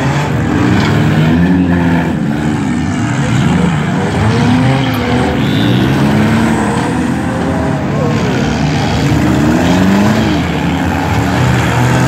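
Several front-wheel-drive demolition derby cars' engines revving up and down at once, overlapping swells of rising and falling pitch as the cars drive and manoeuvre in the arena.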